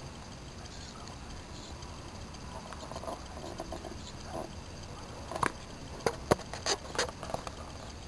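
Faint steady hiss, then a quick run of about six sharp clicks and knocks starting about five seconds in and lasting a couple of seconds.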